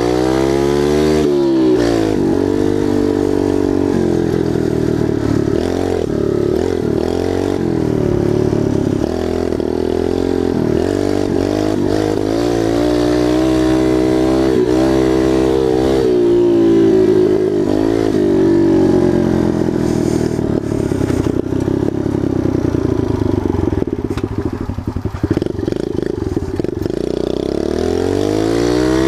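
Kawasaki KLX110's small air-cooled single-cylinder four-stroke engine under way on a dirt trail, its pitch repeatedly climbing and dropping as it revs up and the throttle eases or the gears change. Rattle and scraping from the bike and tyres on loose dirt run under the engine.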